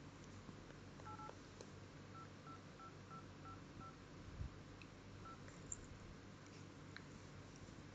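Smartphone dial-pad key tones: short, faint two-note beeps as number keys are tapped. A quick pair comes about a second in, then six evenly spaced beeps over the next couple of seconds, and one more a little later. A soft low thump comes about halfway through.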